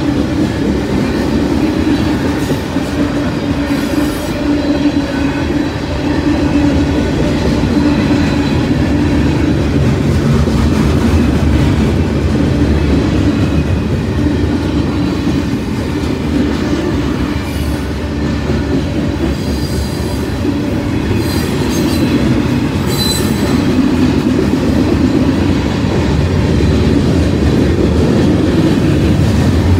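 Long mixed freight train of hopper cars and boxcars rolling past quickly: a steady loud rumble and clatter of steel wheels on the rails, with a few brief high-pitched wheel squeals about two-thirds of the way through.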